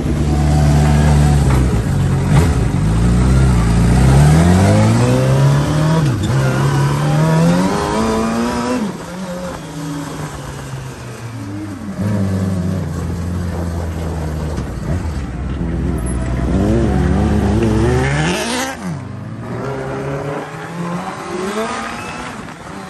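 Motorcycle-engined sand rail's inline-four, heard on board, revving hard and shifting up through the gears several times, with the pitch climbing and dropping at each shift. The engine note falls away sharply about three-quarters of the way through.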